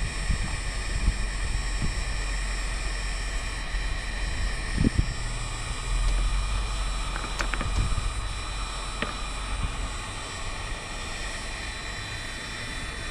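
Steady blowing whir of a heating tool warming powder-painted lead jigs to set the paint, with a few light clicks and taps along the way.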